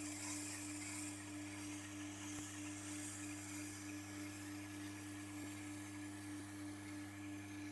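Electric knife-sharpening wheel running with a steady motor hum, with the hiss of a knife blade being drawn across the turning wheel in a sharpening pass.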